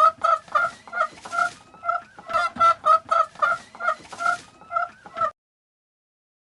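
Chicken clucking: a rapid run of short, repeated clucks, about three to four a second, stopping about five seconds in.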